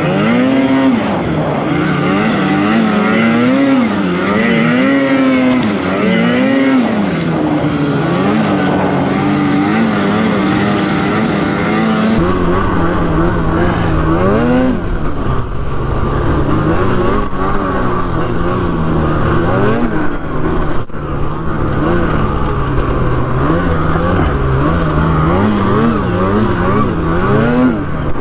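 Snowmobile engine revving up and down again and again as the sled is ridden through deep snow, its pitch rising and falling every second or two. About halfway through, the sound turns into a deeper, fuller rumble as the revving continues.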